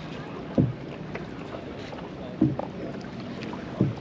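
Small boat out on the water: a steady wash of water and wind, with three short, low slapping knocks about a second and a half apart.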